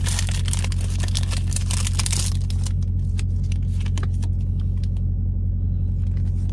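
Foil booster-pack wrapper crinkling and tearing for the first two seconds or so, then lighter ticks of trading cards being handled. Under both runs a steady low engine drone.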